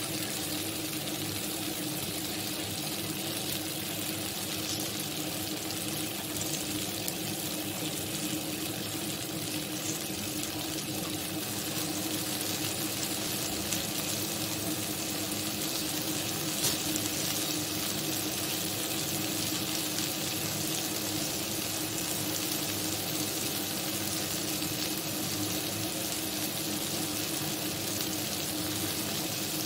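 Green beans, potato slices and fish frying in a kadai, a steady unbroken sizzle over a low steady hum.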